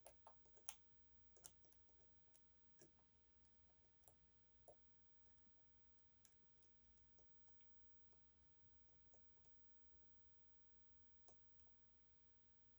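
Faint, irregular clicks and ticks of a lock pick and tensioner working the unsprung sliders inside the keyway of an EVVA 3KS high-security lock. The clicks come several a second for the first few seconds, then only now and then.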